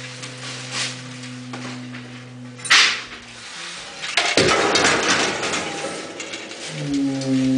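Experimental improvised music imitating buoy sounds. A low, steady horn-like note is held, then cut by a single sharp, loud metallic strike. A rough rushing, scraping noise follows, and the low held note comes back near the end.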